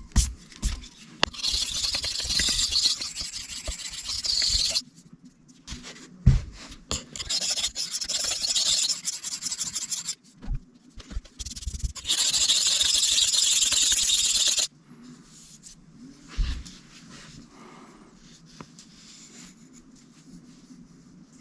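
Knife blade scraped back and forth across a sharpening stone in three runs of steady strokes, with sharp clicks and taps between the runs; the scraping stops about two-thirds of the way in. The edge is being ground to remove a chip.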